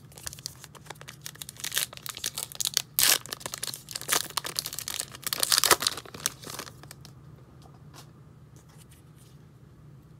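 A baseball card pack's wrapper being torn open and crinkled by hand: a run of crackling and tearing for about six seconds, loudest near the middle, then stopping.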